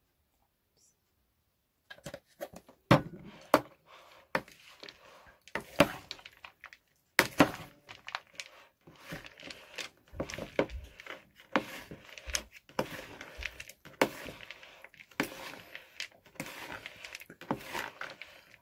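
Red plastic spatula tossing a shredded cabbage salad in a plastic bowl, starting about two seconds in: irregular clacks and knocks of the spatula against the bowl, with the leaves rustling between them.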